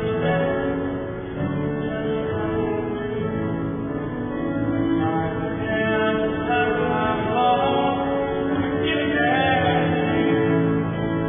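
Music: slow music with held, overlapping notes, and a wavering melodic line over it a few seconds before the end.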